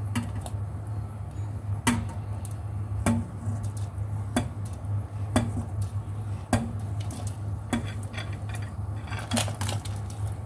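Repeated sharp clinks of a porcelain bowl and stainless steel pot knocking together, roughly one a second, as ingredients are tipped from the bowl into the pot, over a steady low hum.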